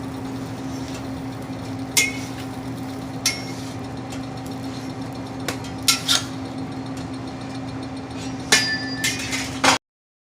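Several sharp clinks and knocks, some with a brief ringing tone, over a steady low hum; a quick cluster comes near the end, then the sound cuts off abruptly.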